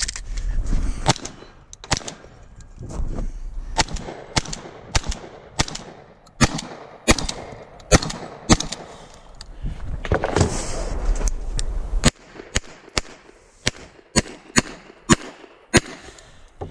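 Gunshots fired in irregular strings, some less than a second apart, with short pauses between groups, about twenty shots in all.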